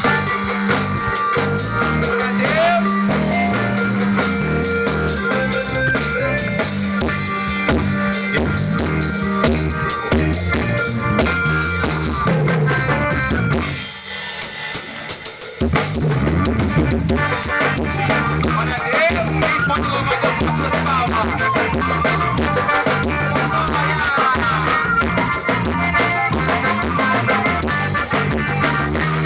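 Live band playing an instrumental forró passage, led by drum kit and bass with melody instruments over them. The drums and bass drop out for a moment about halfway through, then come back in.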